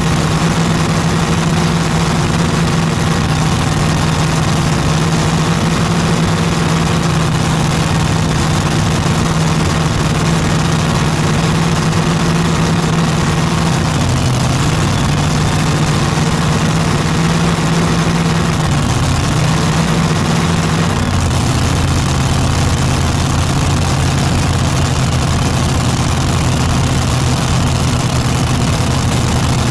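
Light modified pulling tractor's engine idling steadily, settling to a lower idle about two-thirds of the way through.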